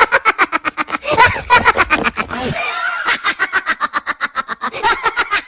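Laughter sound effect: a fast, continuous run of short ha-ha pulses, about nine a second.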